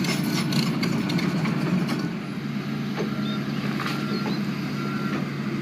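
An engine running steadily at a low, even hum, with faint short high beeps repeating roughly once a second in the second half.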